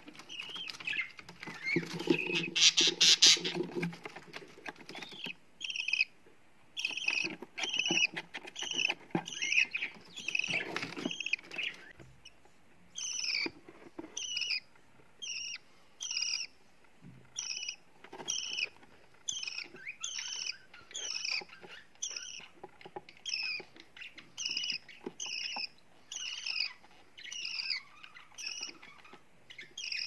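Budgerigar nestlings calling: loud raspy, buzzing calls in the first few seconds, then a steady run of short high chirps, about three every two seconds.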